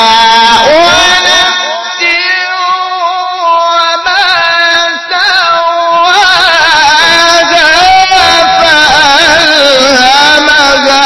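A male Qur'an reciter's voice chanting in tajwid style, through a microphone and PA, in long melismatic held notes with wavering ornaments. It softens about two seconds in and swells again around six seconds in.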